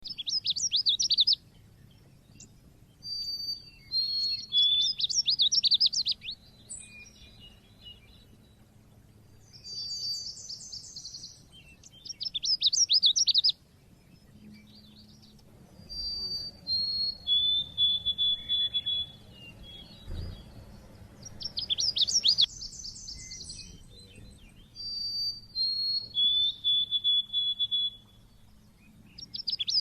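Pleci (white-eye) singing: repeated high-pitched phrases of rapid chirping trills and short held whistled notes, a few seconds apart, with sharp 'cit' notes.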